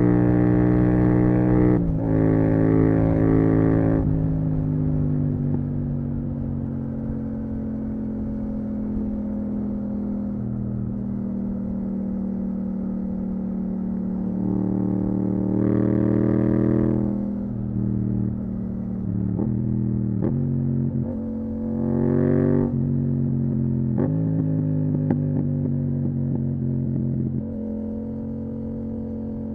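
Yamaha MT-07's parallel-twin engine through a full Akrapovic titanium exhaust, riding along. Revs sink slowly through long stretches of cruising and easing off, broken by gear changes and two short bursts of throttle, about halfway and three-quarters of the way through.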